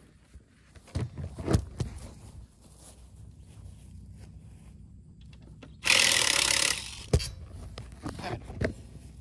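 Power drill running for about a second, driving a screw, with scattered knocks and handling clatter before it and a sharp click just after.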